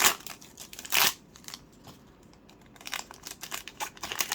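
Foil Pokémon card booster pack being opened by hand: two loud crinkling rips about a second apart, then quicker, softer crinkles of the wrapper near the end.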